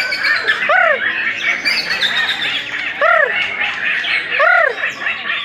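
White-rumped shamas singing together: a dense jumble of rapid chirps and trills, cut through four times by a loud, arched whistled note that rises and falls.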